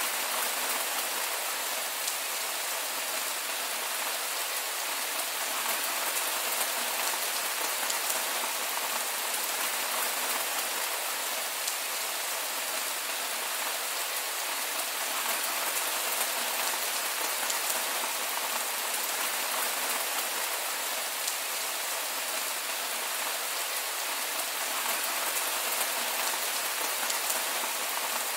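Heavy rain falling steadily: an even, unbroken hiss, with no thunder.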